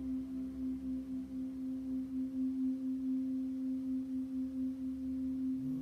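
Ambient background music: a sustained singing-bowl tone that pulses slowly, with a lower tone sliding in near the end.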